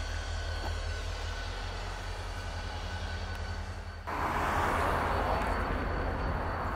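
Wheeling & Lake Erie EMD SD40-2 diesel locomotives, two-stroke V16s, running with a freight train: a steady low engine rumble. About four seconds in the sound cuts abruptly to a louder rushing noise over the rumble.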